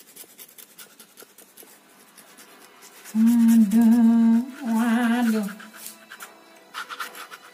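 A person humming: a loud held note about three seconds in, then a shorter note that wavers in pitch. Before that, faint scratching of a ballpoint pen on paper.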